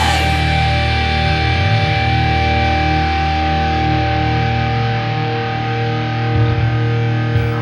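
Heavily distorted electric guitar chord held and left to ring out, steady and unchanging, with no drums playing: a sustained closing chord in an energetic punk metal song.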